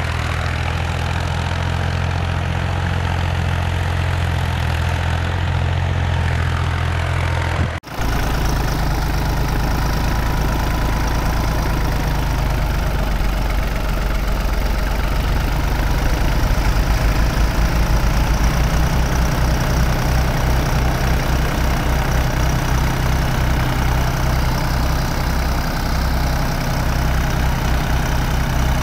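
New Holland Al-Ghazi tractor's diesel engine running hard under load as it drags a cultivator through the soil, front wheels lifted. About eight seconds in the sound cuts abruptly to a closer, louder engine with a pulsing low throb.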